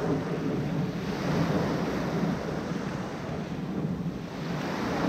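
Steady wind buffeting the microphone, with the wash of sea waves on the shore.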